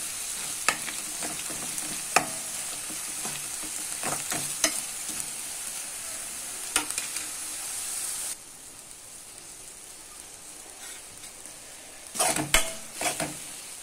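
Chopped onions with ginger-garlic paste and turmeric sizzling in hot oil in a kadai, with a steel spoon scraping and clicking against the pan as it stirs. About eight seconds in the sizzle suddenly drops to a softer level, and near the end louder scrapes and clicks come as the spoon stirs through chopped tomatoes.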